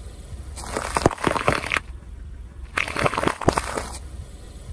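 A car tyre rolling over and crushing whole pale yellow peppers on asphalt: two bursts of crunching and cracking, about a second each, the second coming near the middle, over a steady low rumble.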